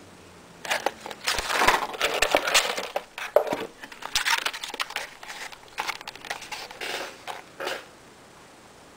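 Clear plastic blister tray of charger adapter tips being handled and flexed, crinkling and crackling in irregular bursts with small clicks. It starts about a second in and stops near the end.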